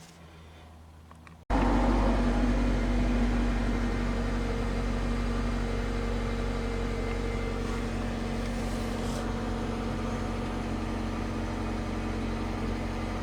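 A vehicle engine running steadily with a constant low hum, starting abruptly about a second and a half in.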